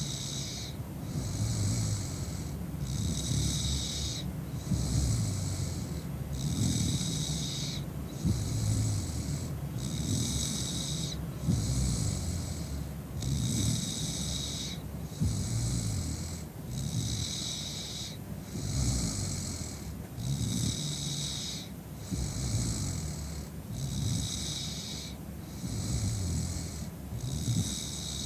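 A woman snoring in heavy sleep after drinking, with a low rattling snore about every two and a half seconds.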